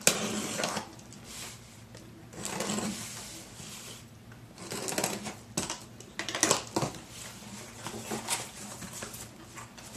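Packing tape being ripped off a cardboard box and the flaps pulled open, in several short tearing pulls; the loudest come at the very start and about six and a half seconds in.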